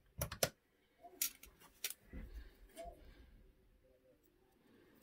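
Several sharp clicks and light taps, most in the first two seconds, as a thin wooden craft-stick strip is handled and gripped with a pair of needle-nose pliers.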